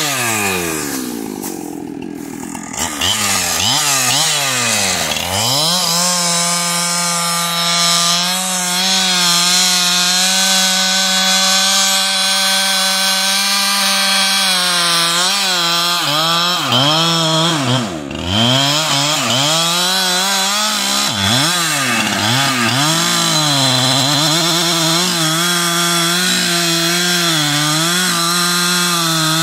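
Two-stroke chainsaw cutting through standing tree trunks. Its engine drops off briefly near the start, then revs back up and runs steady at full throttle in the cut. In the middle it dips and revs up again several times before settling back to a steady full-throttle run.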